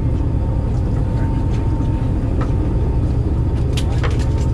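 Fishing boat's engine running under way at trolling speed, a steady low rumble, with a few sharp clicks near the end.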